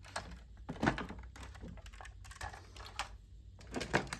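Plastic toy vehicles knocking and clattering as they are handled and rummaged through in a plastic bin: a series of separate clicks and knocks, the loudest about a second in and near the end.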